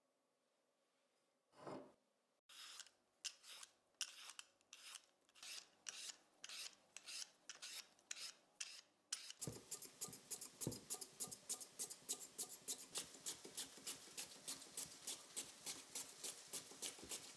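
A vegetable peeler scraping strips of skin off a raw potato in strokes about two a second. Then, about nine seconds in, the potato is pushed over the blade of a mandoline-style slicer in fast, even strokes about four a second, cutting thin slices.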